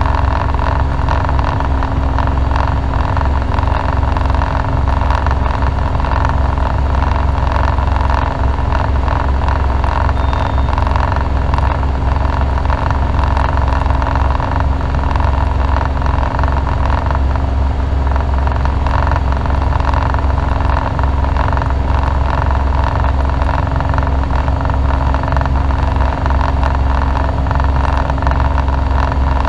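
Light aircraft's engine and propeller running steadily at climb power, a constant drone heard from inside the cockpit.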